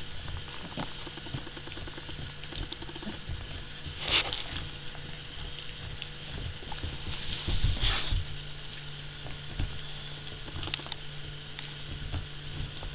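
Cavalier King Charles spaniel gnawing a deer antler: a steady run of small scraping and clicking sounds of teeth on antler, with two louder sharp noises about four and eight seconds in.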